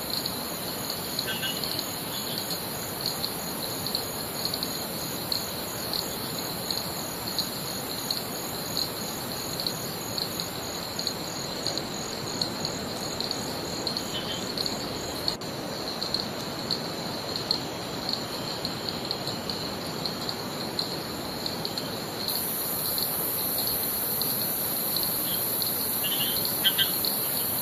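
Steady chorus of tropical forest insects, a pulsing high buzz, over an even rushing noise. A short bird chirp comes a few times, and a higher insect hiss grows louder near the end.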